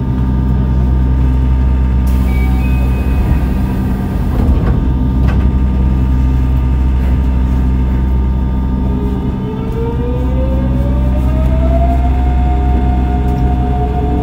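Yokohama Municipal Subway 3000A train with Mitsubishi GTO-VVVF inverter control: a steady low hum with several fixed tones. A burst of hiss comes about two seconds in. From about nine seconds in, an inverter tone rises in pitch for a few seconds and then holds steady.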